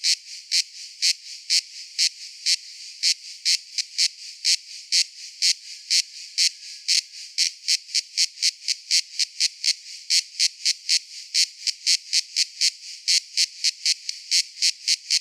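Cicada calling in a regular series of short, high buzzing pulses, about two a second at first, quickening to roughly three a second after the middle.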